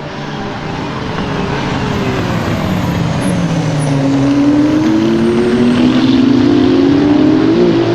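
WEC hypercar racing engine on track, its note dropping about two seconds in and then climbing steadily as it accelerates, getting louder as the car approaches.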